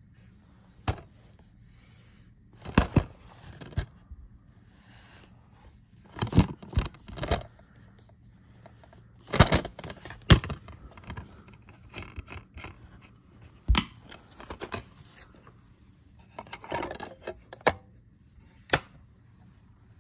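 Handling noise from a portable DVD player being set up: sharp plastic clicks and taps with short bouts of scraping and rustling between them, about a dozen events with quiet gaps.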